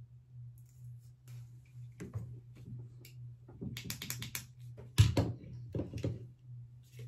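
Hair tools and product bottles being handled on a bathroom counter: a run of light clicks and taps, with one sharp knock about five seconds in, over a steady low hum.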